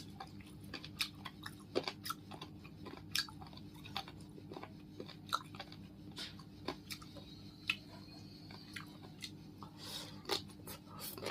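Close-up chewing of crunchy Vietnamese salad (gỏi): irregular crunches and wet mouth clicks, over a steady low hum.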